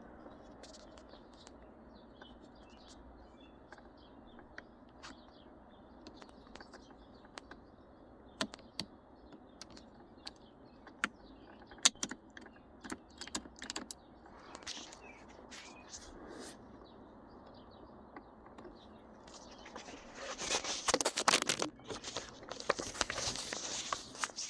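Small plastic clicks and taps as shifter assembly parts are handled and fitted together by hand, scattered at first, then a busier stretch of clattering near the end.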